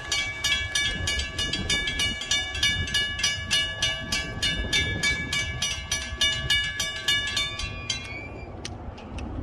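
Railroad grade crossing warning bell ringing rapidly and evenly, about three strikes a second, while the crossing gate is down. It stops about eight seconds in, leaving a low background rumble.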